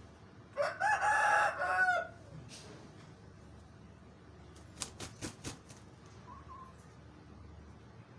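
A rooster crows once, a short crow of about a second and a half near the start. About three seconds later come a few sharp clicks and a brief soft cluck.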